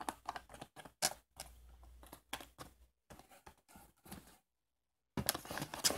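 Plastic snack-nut sachets rustling and crinkling as a hand rummages through them in a cardboard box: a run of quick, clicky rustles, a pause about four and a half seconds in, then a short louder burst of rustling near the end.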